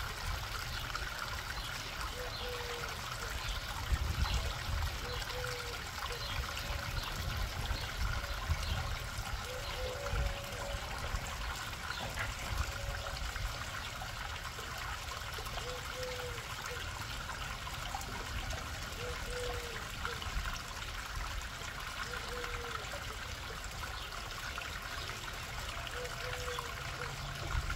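Small rock waterfall trickling steadily into a garden pond, with a faint short note repeating every few seconds.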